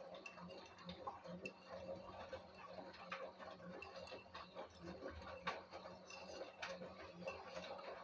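LG WD-1054FB washing machine running: a steady hum with many irregular light clicks and knocks over it.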